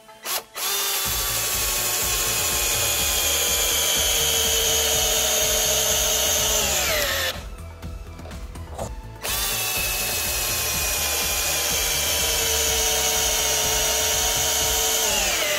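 Aimsak AD414R 14.4 V cordless drill-driver driving two screws into a wooden beam, one after the other with a short pause between. The motor whine sinks slowly as each screw goes in, then drops sharply as it seats and the drill stops.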